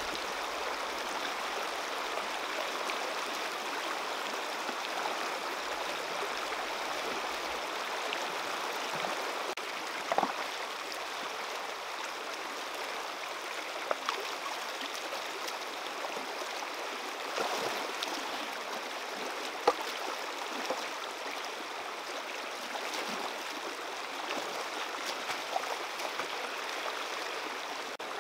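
Shallow river rushing steadily over rocks, with a few brief sharp sounds standing out, the loudest about twenty seconds in.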